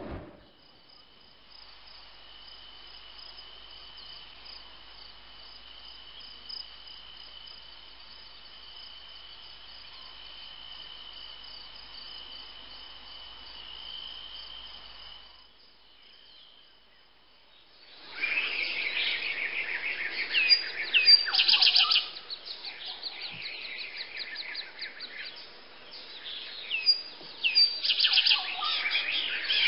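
Nature ambience: a steady, high insect trill over a faint hiss that fades out about halfway through. After a short quiet gap, a loud chorus of chirping and squawking birds starts about 18 seconds in.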